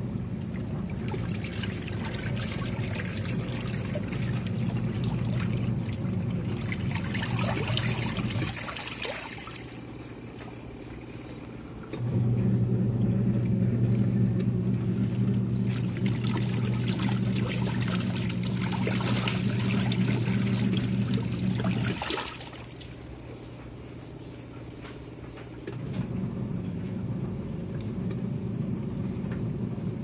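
Twin-tub washing machine on its wash cycle: the pulsator motor hums while churning T-shirts in soapy water, with sloshing and splashing. It runs in stretches of about ten seconds, stopping for three to four seconds about nine seconds in and again about twenty-two seconds in before starting up again.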